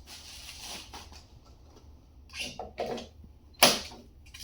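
Knocks, scrapes and clunks of a battery being handled and fitted into an electric cart, with one sharp knock about three and a half seconds in.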